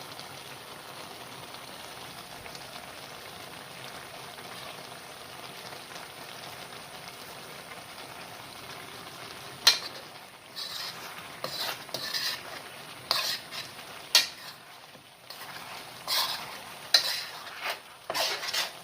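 Chicken wings sizzling and simmering in their sauce in a pan with a steady hiss while the sauce cooks down. About halfway through, a utensil starts stirring them, scraping and knocking against the pan several times.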